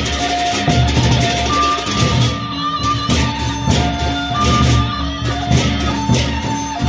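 Sasak gendang beleq ensemble playing: large double-headed barrel drums beating a steady rhythm under rapid, regular cymbal strokes, with held melodic notes over the top.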